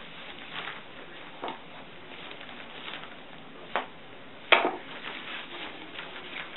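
A few light knocks and clicks as small objects are handled and set down on a bed, with one sharper clack about four and a half seconds in.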